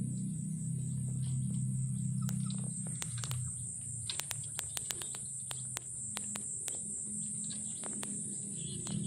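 Soft background music with sustained low tones under a steady, high, insect-like whine, crossed by a run of sharp clicks through the middle.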